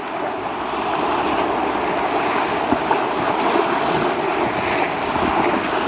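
Steady rush of whitewater from river rapids around a canoe running down a V between standing waves.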